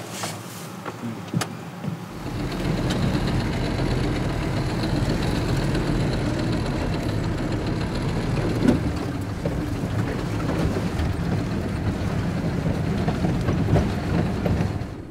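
Cabin noise of a vehicle driving on a rough dirt mountain track: engine and road rumble, steady, starting about two seconds in. Before that, a few faint clicks.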